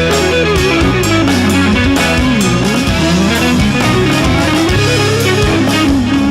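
Rock music with electric guitar: a bending lead guitar line over steady bass notes.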